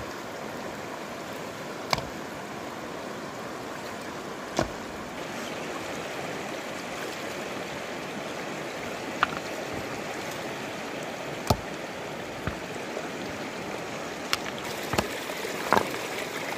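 Shallow stony river flowing steadily over rocks, with a few sharp, scattered clacks of stones knocking together as they are set in the water to build a small stone dam.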